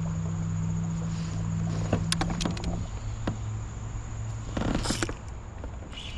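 A steady high-pitched insect drone over a low steady hum that fades out about five seconds in, with a few sharp clicks around two seconds in and a short rustling burst near the end.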